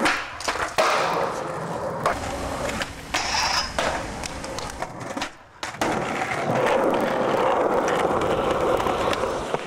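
Skateboard sounds: a few sharp board clacks and landings in the first few seconds, then, from about six seconds in, the steady rolling rumble of skateboard wheels on a concrete path.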